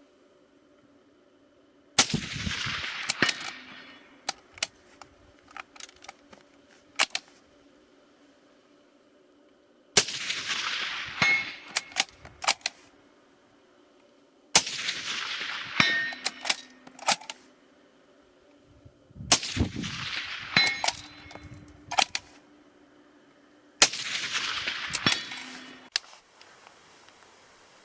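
Five shots from a suppressed Tikka T3X bolt-action rifle, each a sharp crack that rings away over a second or two. Each shot is followed by lighter metallic clicks and clangs as the bolt is cycled.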